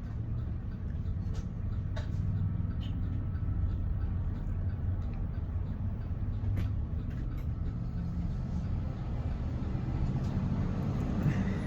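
Steady low vehicle rumble, with a few faint clicks.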